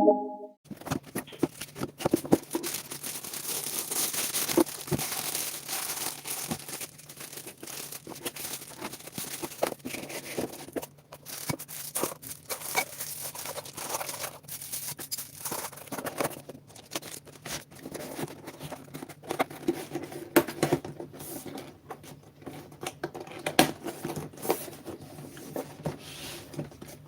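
Packaging being handled: crinkling and rustling with many small clicks and knocks, over a steady low hum.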